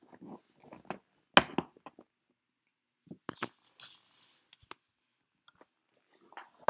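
Handling noise from a Louis Vuitton Speedy Bandoulière 30 handbag being lifted and moved: a sharp knock about a second and a half in, light clicks and clinks from its metal strap hooks and buckles, and a brief rustle of the bag brushing close to the microphone around the middle.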